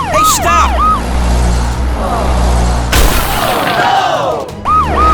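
Emergency-vehicle siren in a fast repeating falling whoop, about four a second, over a low steady engine drone. About three seconds in a sudden crash-like burst breaks in with falling swooping tones, and the siren resumes near the end.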